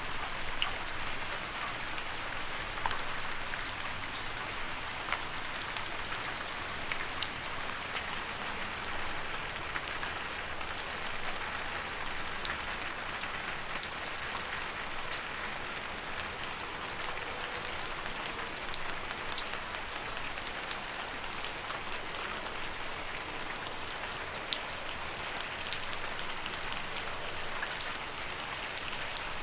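Steady rain falling, an even hiss with the scattered sharp taps of individual drops landing close by.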